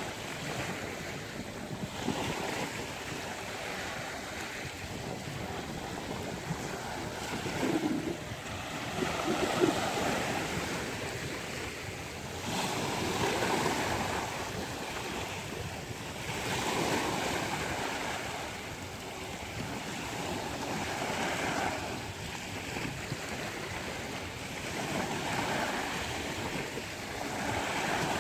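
Sea waves breaking and washing up a beach, the surf swelling and falling back every few seconds, with wind.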